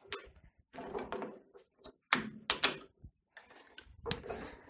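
Metal-on-metal clinks and knocks as a steel ring blank is handled in a lathe's three-jaw chuck: about five sharp clicks with brief ringing, the loudest two a little past the middle.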